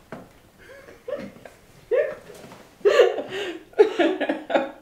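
A woman and a man laughing: short bursts that grow louder and closer together from about three seconds in.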